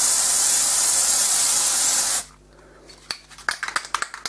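Aerosol spray can of white primer hissing in a steady continuous burst, cut off abruptly about two seconds in. After a short pause, a quick run of light, irregular clicks and rattles.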